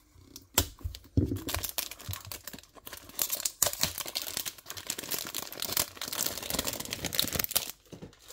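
Packaging of a small boxed model car being torn open and handled, with dense crinkling and tearing for several seconds. It starts about half a second in and stops near the end.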